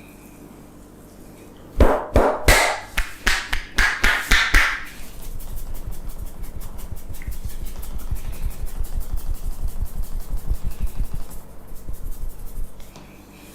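Hands striking a person's head during a barber's head massage. About a dozen loud, irregular slaps come first, then a long run of rapid, even tapping strokes that stops shortly before the end.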